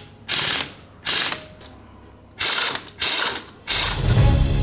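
Pneumatic impact wrench rattling in about five short bursts on the central nut of a StuG III G tank final drive. Music comes in near the end.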